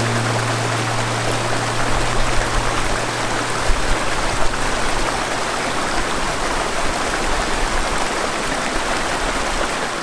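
Small mountain stream rushing and splashing over boulders, a steady even rush of water.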